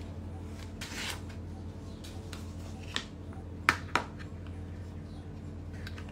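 Paper sliding and rustling on a cutting mat, then a few light, sharp taps of small tools being handled about three to four seconds in, over a steady low hum.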